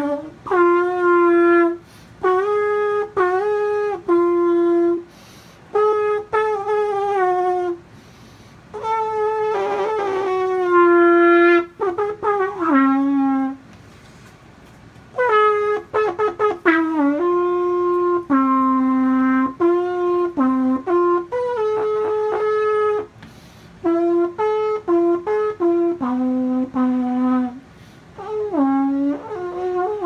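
A dishwasher drain hose played like a brass instrument, lips buzzing into one end to give a brassy horn tone. Phrases of held and stepping notes, moving between a few pitches, with short gaps between them.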